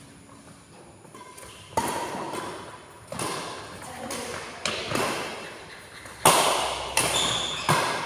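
Badminton rally: rackets striking a shuttlecock in a string of sharp hits roughly a second apart, louder toward the end, each one echoing in a large hall.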